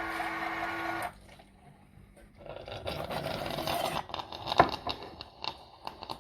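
A steady machine hum stops about a second in. It is followed by scraping and a run of clicks and knocks, with one louder knock in the middle.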